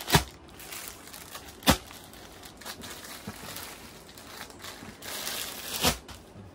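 Packaged bed sheets in plastic wrapping rustling and crinkling as they are handled, with three short sharp snaps or knocks: two close together near the start and one near the end.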